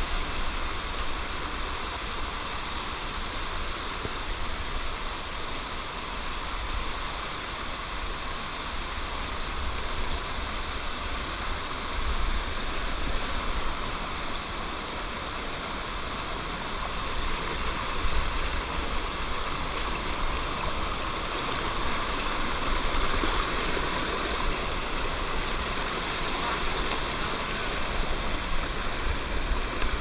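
Rocky mountain stream rushing steadily over boulders and small cascades, heard close to the water, with a low rumble underneath.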